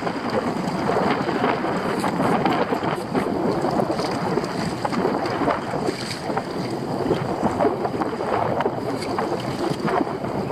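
Wind buffeting the microphone, steady and gusty, over choppy sea splashing against the bow of a fishing kayak in rough weather.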